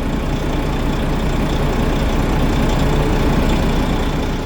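Volvo FH4 truck's six-cylinder diesel engine idling steadily at about 600 rpm while still cold, warming up after repair of its rocker-arm valve train.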